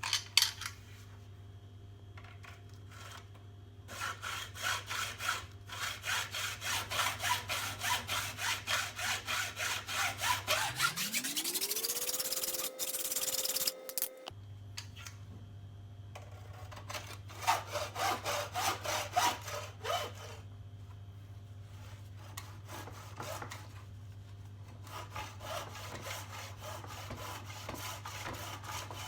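Hacksaw cutting through a roof-rack crossbar in quick, even back-and-forth strokes, in several bouts with pauses between. About ten seconds in, the strokes blur into a fast rasp under a steeply rising tone, which cuts off suddenly a few seconds later.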